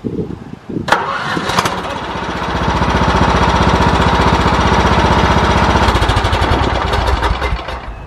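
Huskee riding lawn mower's engine cranking on a jump from a car battery, catching about a second in and running steadily, building up over the next couple of seconds and dying away near the end. Starting this quickly on the jump is the sign that the mower's own battery is dead.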